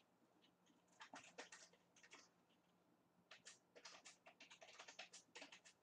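Faint computer keyboard typing: quick, irregular clicks in two bursts, over a faint steady hum.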